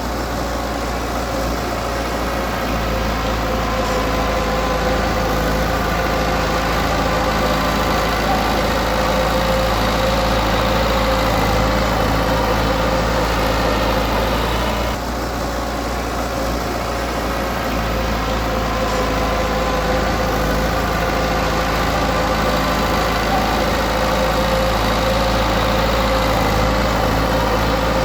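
Diesel engine of heavy earthmoving equipment running steadily with a deep low rumble and a steady hum, dipping briefly about halfway through.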